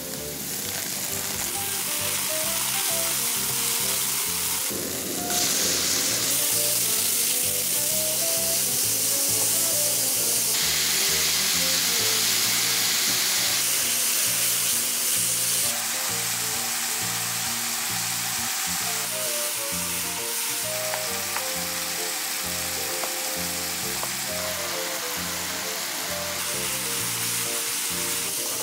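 Sliced garlic and green onion, then pork, sizzling in hot oil in a nonstick wok as they are stir-fried. The sizzle is steady and changes level abruptly a few times.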